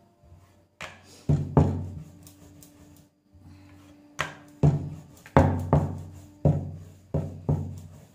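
Rolling pin working dough on a round metal rolling board, which knocks and rings on its stand with the strokes: about ten uneven knocks, each with a short ringing tail.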